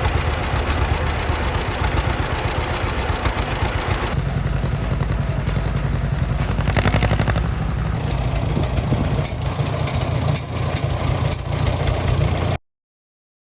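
1948 combine harvester running in the field: a steady engine under the dense clatter of its working parts. It stops abruptly near the end.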